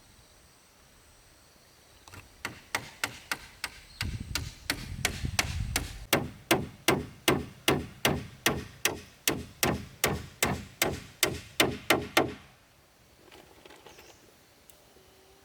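A hammer striking in a steady rhythm, about two to three blows a second, for about ten seconds before stopping. A low rumble runs under the blows for a couple of seconds early in the run.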